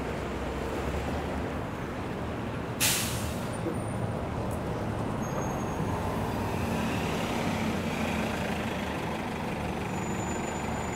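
Street traffic with a heavy vehicle's engine running, and a sharp air-brake hiss about three seconds in.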